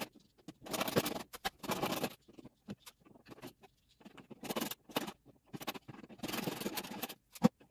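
Hand screwdriver turning the screws that fasten a ceiling light's mounting bracket to the junction box: irregular scratchy scraping bursts with small clicks between them.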